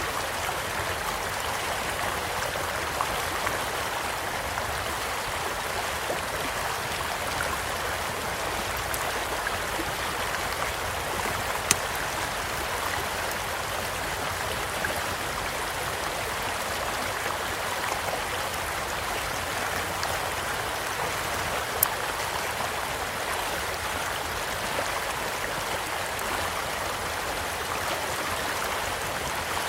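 Stream flowing steadily beside a campfire, with a few sharp pops from the burning wood; the two loudest come about twelve and twenty-two seconds in.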